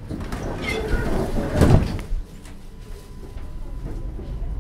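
Tatra T3A tram's passenger doors closing at a stop: about two seconds of noisy clatter that peaks and then stops sharply. Low running noise of the tram starts to build near the end.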